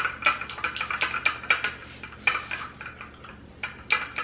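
A white plastic spoon stirring a potato-starch and egg-white mixture in a small glass bowl, clinking and scraping against the glass in quick, irregular taps with a slight glassy ring.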